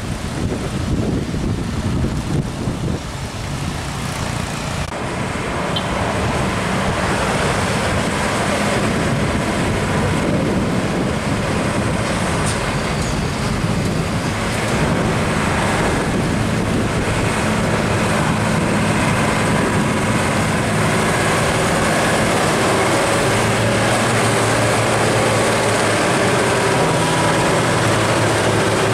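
Old diesel trucks driving slowly past on the road, a steady engine drone over traffic noise.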